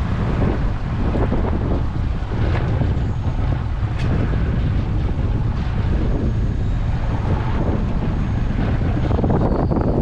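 Wind buffeting the microphone on an open boat: a steady, heavy rumble, with one sharp click about four seconds in.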